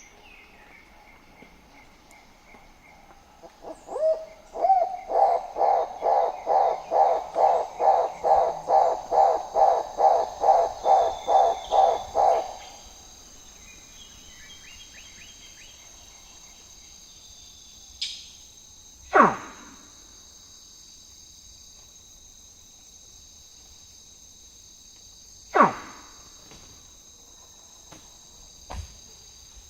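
Rainforest ambience: an animal gives a loud series of about seventeen hooting notes, about two a second, for some nine seconds, over a steady high insect chorus. Later two loud falling whistles sweep down from high to low, several seconds apart.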